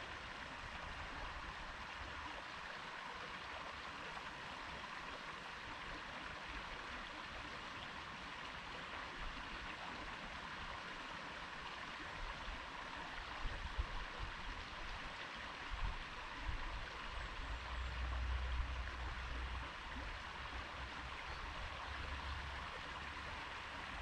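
Stream flowing and babbling in a steady, even rush of water. Some low rumbles come through in the second half.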